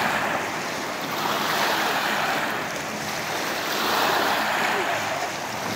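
River water washing and lapping against the bank, a steady rush that swells and ebbs every two seconds or so.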